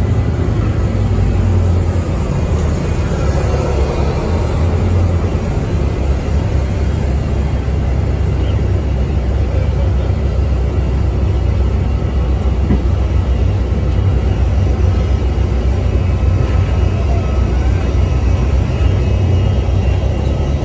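Airport apron shuttle bus running, heard from inside the passenger cabin: a steady low engine and road rumble.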